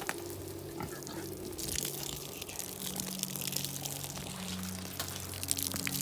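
Water hissing and rushing for a few seconds, over a low steady machine hum and a few light clicks.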